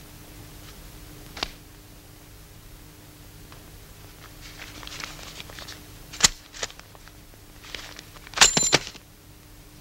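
Handling noises on an old film soundtrack over a steady low hum: a few sharp clicks and faint rustling, then a short loud clatter with a thin metallic ring near the end.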